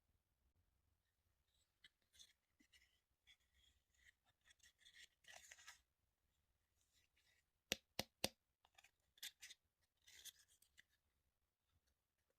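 Small plastic toy pieces being handled and unpacked: quiet rustling and light scraping, with three sharp clicks in quick succession about two-thirds of the way through.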